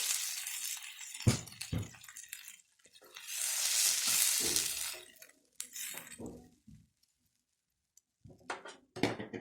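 Curry masala sizzling in a hot pan, with two knocks of a spoon on the pan about a second in and a second loud sizzling hiss about three seconds in. After that come short clinks and knocks of utensils and pans.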